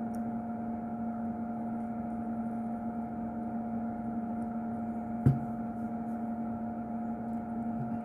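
Steady electrical hum holding two constant pitches, a low one and a higher one, with one short sharp click about five seconds in.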